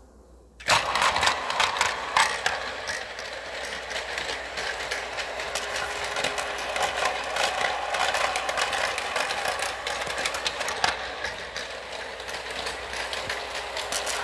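Motorized toy subway trains running on plastic track: a steady small-motor whine with rapid clicking and rattling, starting after a moment of silence.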